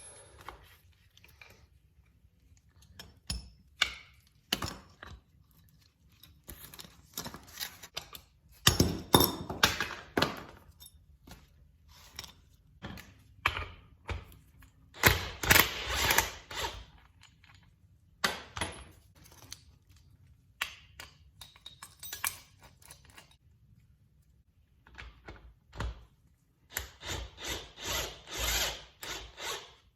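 Tools and metal parts of a Nissan R200 differential being worked on during disassembly: scattered knocks, clinks and scrapes, with several longer, louder rattling bursts of tool work, the last a run of short repeated bursts near the end.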